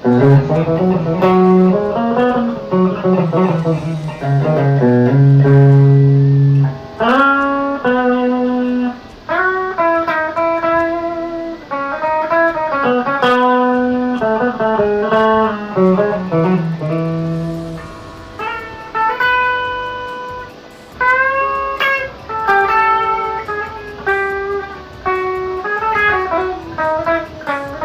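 Custom-built hybrid guitar played single-note solo lines through its bridge pickup on a clean tone. The notes ring and sustain one after another, and several glide up into pitch.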